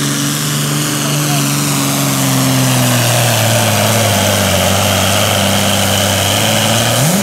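Diesel engine of a Super Farm class pulling tractor running hard at high revs. Its pitch sags a little partway through and sweeps up sharply near the end before the sound falls away.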